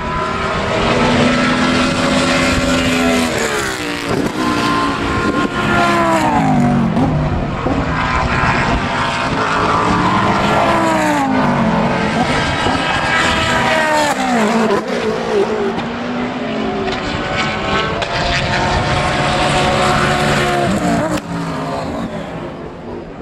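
GT race cars passing one after another at speed, several engine notes overlapping, each falling in pitch as the car goes by.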